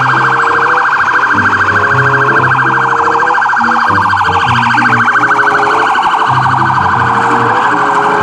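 Ambulance siren with a fast, continuous warble, over low tones that step between pitches.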